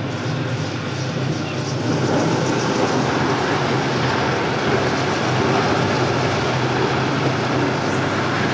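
Electric floor-grinding machine grinding a wet broken-marble mosaic floor: a steady motor hum under a loud gritty grinding noise, which grows a little louder about two seconds in.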